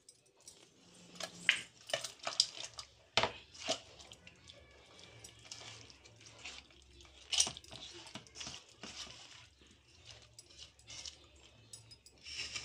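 Fish pieces being mixed by hand into a wet spice paste in a metal pot: wet squelching and irregular light clicks and knocks against the pot.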